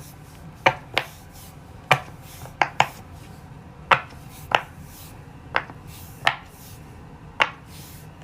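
Silicone pop-it fidget toy bubbles being pressed in, one at a time. About ten short, sharp pops come at uneven intervals, some in quick pairs.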